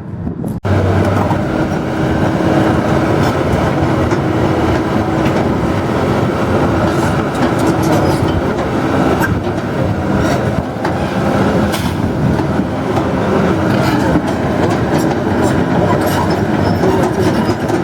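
Heavy demolition machinery working: a diesel engine runs steadily under load, with scattered knocks and clanks. The sound cuts in sharply about half a second in.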